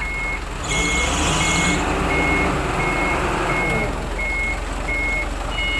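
Forklift backup alarm beeping steadily, about one beep every 0.7 seconds, as the forklift moves with a steel tank on its forks. Its engine runs underneath and revs up about a second in, easing off again after about three seconds.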